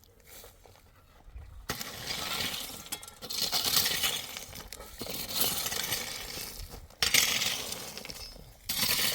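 Rattling, clinking noise of hard small objects, coming in several surges that start abruptly.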